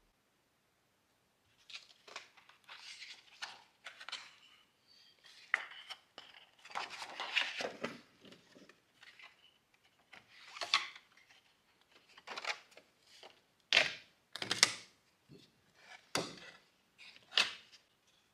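Oil pastel scraping and rubbing on paper in irregular strokes with short pauses between them, starting about two seconds in.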